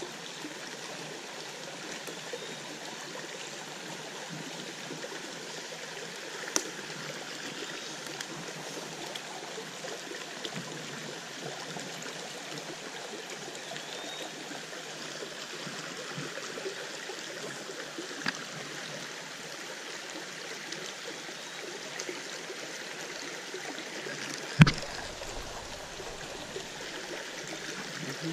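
Small rocky stream running steadily over stones in a shallow riffle. A few sharp knocks sound over it, the loudest about three-quarters of the way through with a dull thud under it.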